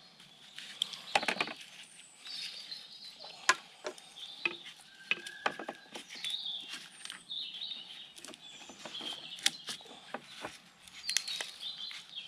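Roots of a Japanese maple being cut and pulled apart by hand and with a small cutting tool, giving scattered sharp clicks and crackles. Small birds chirp throughout.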